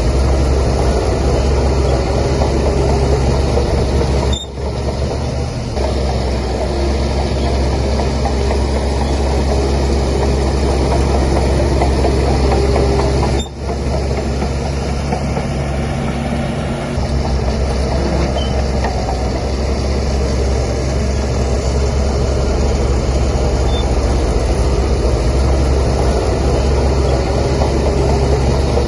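Heavy diesel engine of a Shantui DH17C3 crawler bulldozer running steadily and loud while pushing soil. It briefly drops out about four seconds in and again about halfway through.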